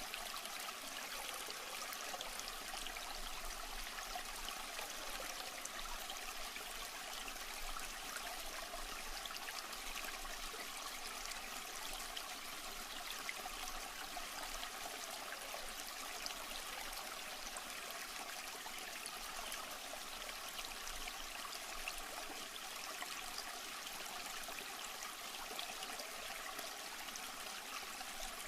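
Water trickling and splashing steadily, as from a fish tank's filter return.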